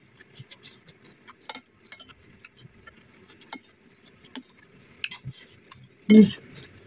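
Metal spoon clinking and scraping on a ceramic plate as sauce-soaked rujak is scooped up, in scattered light clicks. A short, louder mouth noise comes about six seconds in.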